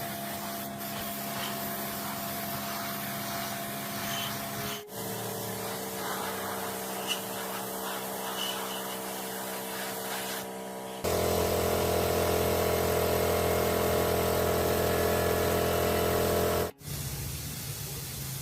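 A machine running steadily, heard in three stretches split by abrupt cuts; the last stretch, from about 11 seconds in, is louder and fuller in the low end.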